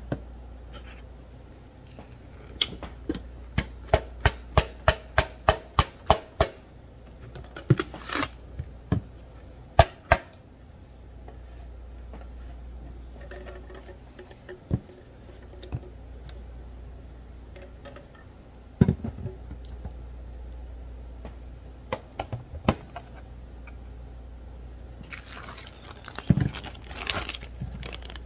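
Ice being handled in a plastic container: about a second in, a run of about a dozen sharp taps at roughly three a second, then scattered knocks. Near the end, a crunchy, rattling pour as crushed ice is tipped out of a Ninja blender pitcher into the container.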